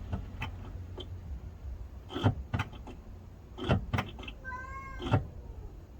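A series of short knocks and clunks, about seven of them spread out, with a short high-pitched squeal lasting about half a second near the end.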